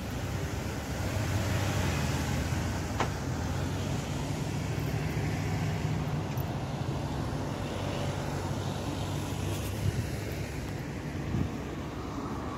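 Road traffic noise: passing vehicles with a steady low engine hum, and one sharp click about three seconds in.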